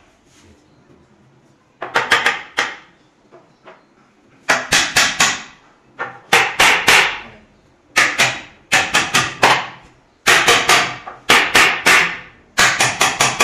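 Small hammer nailing a plywood shelf top onto its side panel, striking in quick bursts of four to six blows with short pauses between them.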